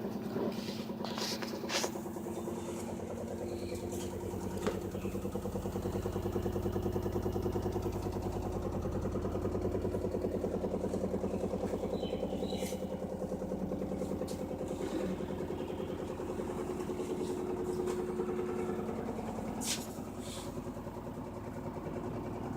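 LG washing machine running: a steady motor hum with a fast, even pulsing, swelling a little about a quarter of the way in, with a few short clicks.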